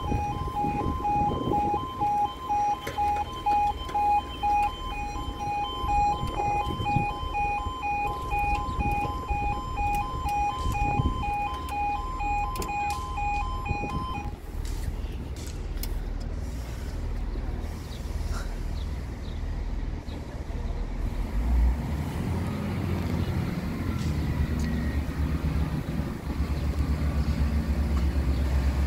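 Level crossing audible alarm sounding a rapid two-tone pulsing warning, which cuts off about halfway through. Then a low rumble builds near the end as a train approaches the crossing.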